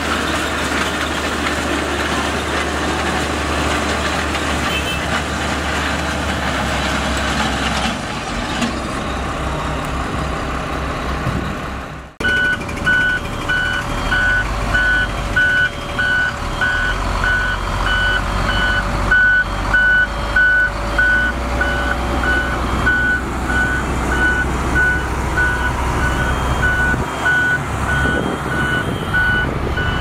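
Motor grader diesel engine running while its ripper tines drag through gravel. After a sudden cut about twelve seconds in, an XCMG motor grader's engine runs while its reversing alarm beeps steadily, the machine backing up.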